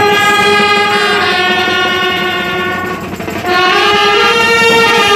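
Brass band of trumpets playing long, held notes together in a loud phrase that steps between pitches, with a short break about three seconds in before the next phrase.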